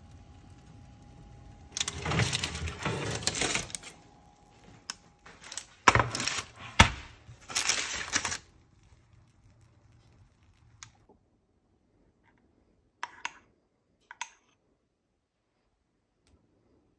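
Metal baking tray scraping and clattering on the oven rack as it is pulled out of the oven, with two sharp knocks about six and seven seconds in, then a few faint clinks.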